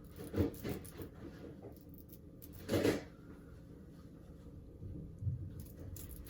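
Faint scratching and light taps of a razor being drawn along the lace of a lace-front wig to trim it, with one louder brief scrape or rustle about three seconds in and a few soft thumps near the end.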